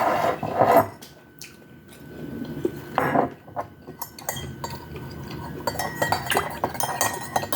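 Cutlery clinking and scraping against a plate of food, with a quick run of clinks in the second half.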